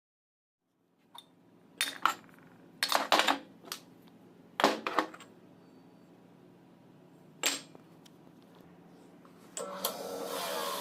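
Metal tools and starter-motor parts clanking and clicking on a workbench, several separate sharp knocks over a low steady hum. A steady mechanical whirring starts near the end.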